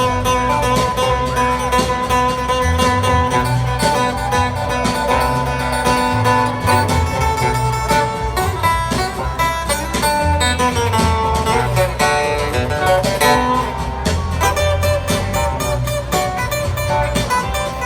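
A band playing an instrumental passage of a song, led by plucked guitars over a steady bass line, with no singing.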